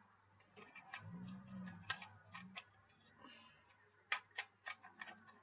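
Light plastic clicks and taps from a cheap plastic toy dart blaster being handled and loaded, ending in a quick run of about five sharp clicks.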